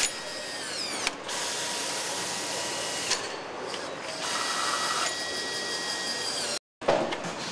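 Pneumatic hand tools run down bolts on an engine assembly line, whirring and ratcheting over steady factory noise. A falling whine comes about a second in, and a steady whir runs through the second half. The sound cuts out for an instant near the end.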